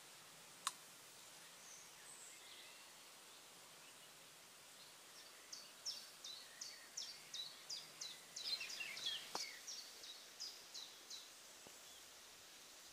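A small bird singing a run of short, high, repeated notes, about three a second, from about five seconds in until near the end, over a quiet outdoor hiss. There is one sharp click a little under a second in.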